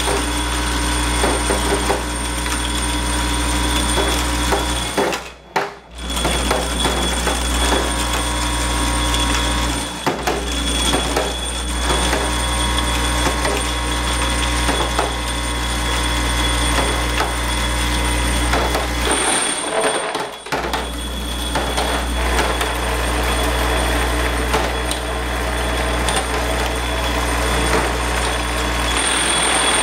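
A vibratory parts feeder for a centerless grinder is running, with a steady low hum under a constant rattle of steel pins jostling in the hopper and along the vibrating tray. The sound cuts out briefly about five seconds in and again near twenty seconds.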